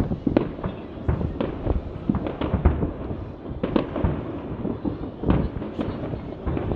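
Aerial firework shells bursting in an irregular run of booms and bangs, about one or two a second, each trailing off in a short rumble; the loudest bang comes about two and a half seconds in.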